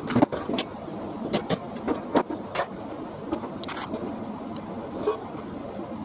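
Irregular sharp metallic clicks and knocks, about a dozen in six seconds, of hand tools and metal parts being handled, over a steady background hiss.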